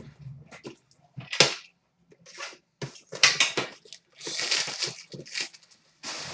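Hockey card packaging being torn open: a series of short, irregular rips and crinkles of wrapper and cardboard, with one sharp crack about a second and a half in.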